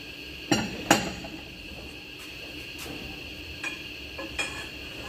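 Steel wheel wrench and bar clanking against a truck's wheel nuts during wheel-nut tightening: two sharp metal clanks about half a second apart early on, then a few lighter clinks near the end.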